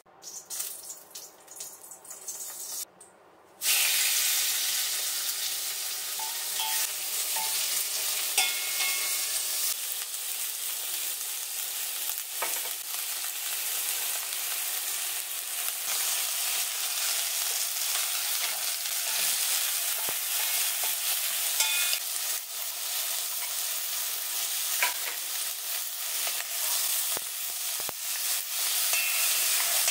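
Chicken and vegetables frying in olive oil in a heavy pot, a steady sizzle, with the occasional scrape and click of a wooden spatula stirring them. The sizzle starts suddenly a few seconds in, after some brief light clatter.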